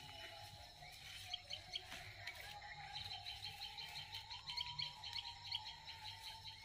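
Small birds chirping in quick, repeated high notes, several a second, starting about a second in.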